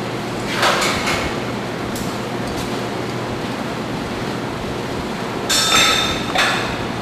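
Metal clanks and clinks from steel hardware on an oxyfuel cylinder rig being handled. There are a few knocks early, and the loudest strikes come about five and a half to six and a half seconds in, ringing briefly. A steady hiss and hum runs underneath.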